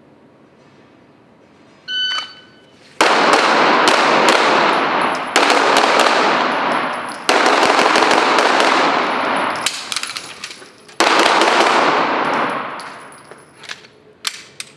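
A shot timer beeps about two seconds in, then a 9mm pistol fires in rapid strings, four fast bursts with short breaks between them and a few lone shots near the end. The shots echo heavily off the walls of the indoor range.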